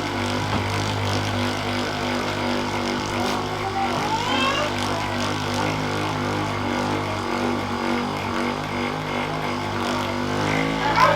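A steady low mechanical hum from a running motor, continuous and unchanging in pitch.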